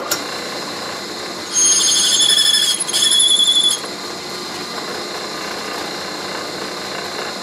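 Delta drill press switched on and running steadily, with a high warbling squeal twice, about a second and a half to nearly four seconds in.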